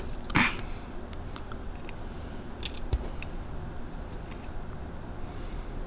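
Quiet workbench room tone with a low hum, a brief hiss about half a second in and a light tap around three seconds in, as a wire is soldered onto a practice-board pad.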